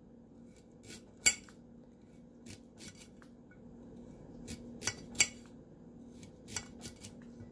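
Kitchen knife slicing a peeled carrot into thin rounds on a ceramic plate, the blade clicking sharply against the plate at irregular intervals with each cut.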